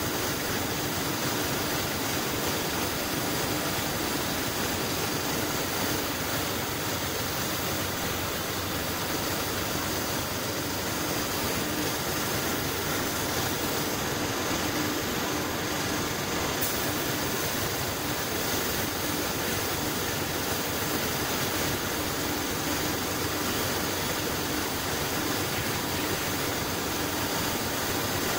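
Steady rush of compressed air from a gravity-feed paint spray gun as paint is sprayed, with a constant low hum under it. The highest part of the hiss eases for a couple of seconds about halfway, then comes back with a short sharp sound.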